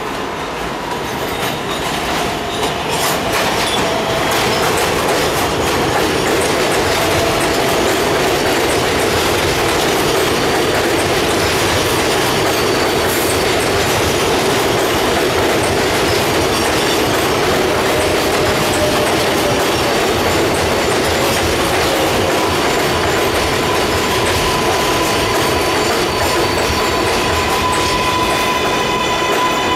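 A New York City Subway R142A train pulling into an elevated station, growing louder over the first few seconds as it arrives. Its wheels clatter over the rail joints and squeal as the cars run past. A steady whine comes in about two-thirds of the way through as the train slows.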